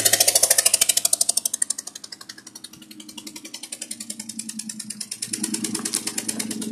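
2000 Ford Mustang GT's 4.6-litre V8 running with a rapid, regular knock-like tapping that the owner says does not come from the bottom of the block; the engine is logging a cylinder 7 misfire. The tapping is louder for the first second or so, falls back, then grows louder again about five seconds in.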